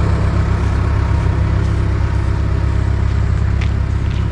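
An engine idling steadily, a low, even running sound with fast regular pulsing.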